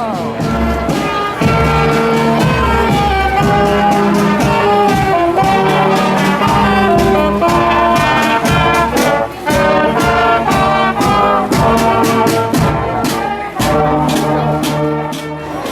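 Brass band playing a tune, trumpets and trombones in sustained notes, with frequent drum hits.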